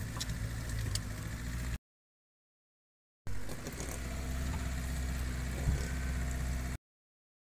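Maruti safari jeep's engine running with a steady low hum, heard from inside the cabin, with one sharp knock near the six-second mark. The sound cuts out to dead silence twice, for about a second each time, where the video is edited.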